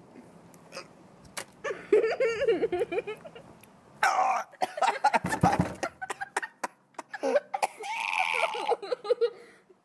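A man coughing, spluttering and groaning in pain from a mouthful of hot wasabi, with no clear words.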